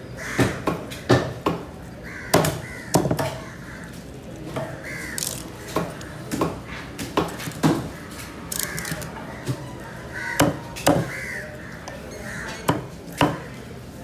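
Heavy knife chopping tuna on a wooden block, with irregular sharp strokes. Crows caw repeatedly between the strokes.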